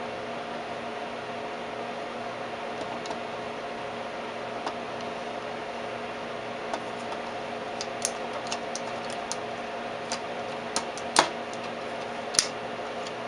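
Steady hum of a running Tektronix 549 vacuum-tube oscilloscope, with a series of sharp clicks in the second half, the loudest two near the end, as the oscillator box's knobs and switches are turned and the pattern on the screen changes.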